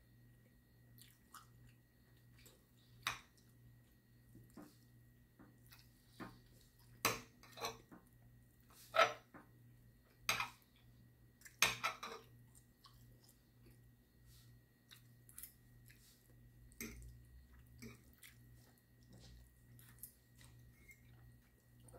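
Someone eating steak and noodles: chewing, with a fork clicking and scraping on the plate in short sharp ticks, several louder between about 3 and 12 seconds in. A faint steady hum underneath.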